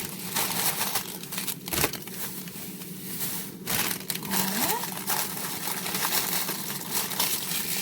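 Continuous crinkling and rustling as salad vegetables are handled at the kitchen counter.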